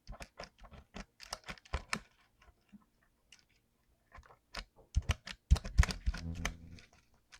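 Mechanical keyboard with clicky blue switches being typed on: irregular sharp key clicks, thinning out for a couple of seconds in the middle and coming faster and louder near the end.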